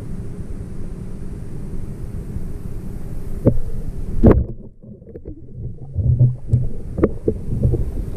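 Underwater rumble of water moving around a freediver's camera, with a few sharp clicks and knocks; the loudest click comes about four seconds in.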